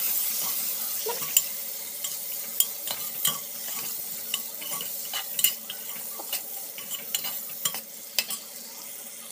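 Sliced onions sizzling in hot oil in a pot while a steel ladle stirs them, clicking and scraping against the pot many times. The sizzle slowly dies down.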